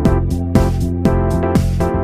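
Background music with a steady electronic beat and keyboard notes.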